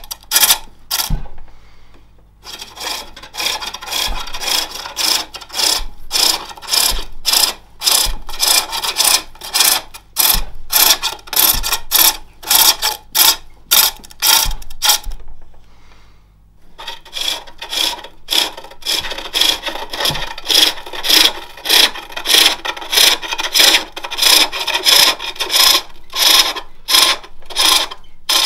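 Spring pole lathe turning a jacaranda plate: a hand-held turning tool cuts the wood in rhythmic rasping strokes, a little under two a second, each stroke as the treadle spins the work toward the tool. The cutting stops briefly about a second in and again about halfway.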